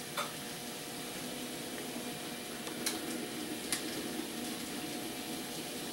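N scale model train running on the layout: a steady hiss and hum with three short, sharp clicks, one just after the start and two close together about three seconds in.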